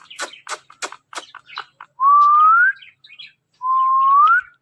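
Ringneck parrot giving two clear whistles about a second and a half apart, each gliding upward in pitch near its end. A run of quick clicks comes before them.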